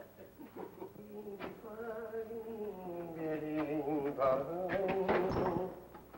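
A man humming a wordless tune with a wavering pitch that sinks slowly and then rises again, with a few light clicks.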